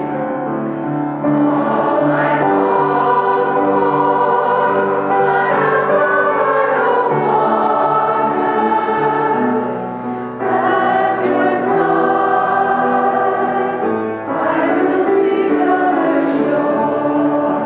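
Congregation and choir singing a hymn together, many voices including women's, in long sustained phrases with brief pauses between.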